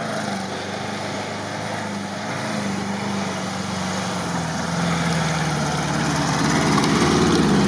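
ZAZ-968M Zaporozhets's rear-mounted air-cooled V4 engine running under load as the car climbs a muddy slope on tyre chains. The engine note is steady and grows louder as the car comes closer.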